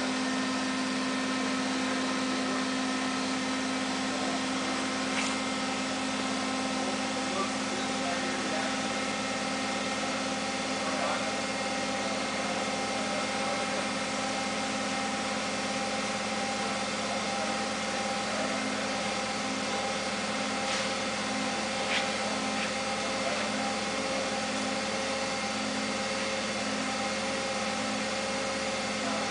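Forklift engine running steadily as the mast slowly lifts a platform, a constant hum with a few faint clicks.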